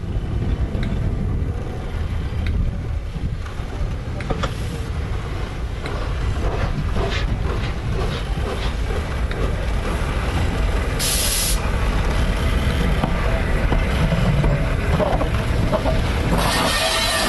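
Peppercorn A1 Pacific steam locomotive 60163 Tornado running slowly tender-first, a steady low rumble. There is a short burst of steam hiss about eleven seconds in, and a loud steam hiss starts as the engine draws alongside near the end.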